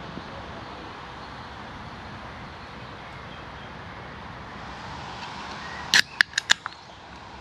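A lighter struck several times: four or five sharp clicks in quick succession about six seconds in, over a steady background hiss.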